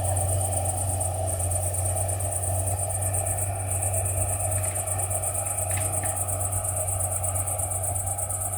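Tractor engine running steadily, a constant low drone, with a steady high-pitched trill above it.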